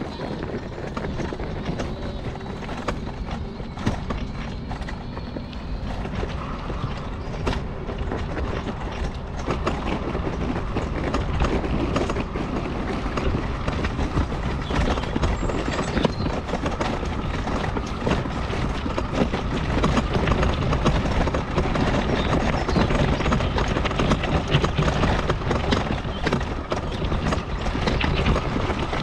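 Mobility scooter running along a rough path, its frame rattling and knocking continuously over the bumps, a little louder from about a third of the way through.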